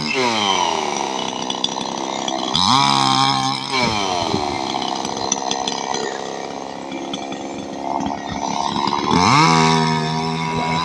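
Chainsaw engine running, its pitch swinging: it drops at the start, is revved up sharply twice (about two and a half seconds in and again near the end), and falls back each time.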